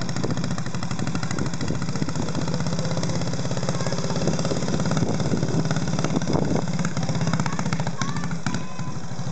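The 5 hp Briggs & Stratton Model 14 single-cylinder engine of a 1949 Tiger PTD5 garden tractor runs steadily with a fast, even beat as the tractor drives along pulling a loaded trailer.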